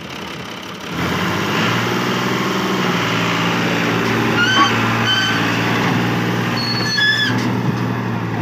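New Holland (Fiat) 480 tractor's three-cylinder diesel engine picks up about a second in and then runs steadily under heavy load, hauling a trolley full of bricks. Three short high-pitched tones sound near the middle and again toward the end.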